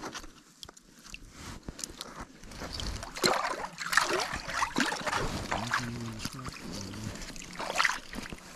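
Water splashing and sloshing in a hole in the ice as a magnet fishing catch is swished and rinsed. It is fairly quiet at first, then busy with sharp splashes from about three seconds in.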